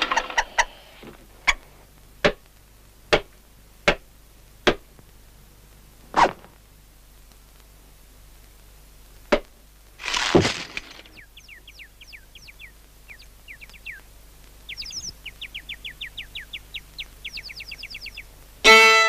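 Cartoon sound effects: a run of sharp knocks, most about a second apart, then a short whoosh about ten seconds in, followed by many quick little rising squeaks. Near the end a violin begins to play.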